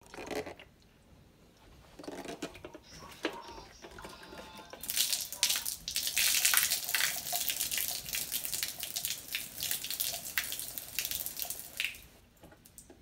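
Aerosol spray paint can spraying in a series of short hissing bursts, starting about five seconds in and stopping near the end, with a few fainter clinks before it.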